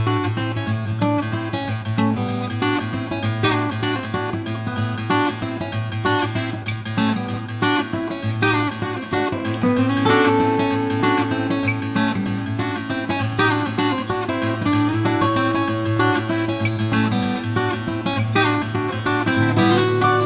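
Instrumental background music led by acoustic guitar, quick plucked and strummed notes over a steady low bass.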